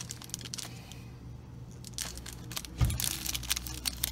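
Crinkling plastic wrap and rattling plastic as a hand rummages in a clear plastic tub of wristbands, with a dull knock about three seconds in.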